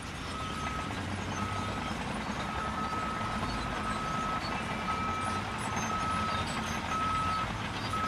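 Reversing alarm beeping a single steady tone about once a second, over a continuous vehicle-like rumble.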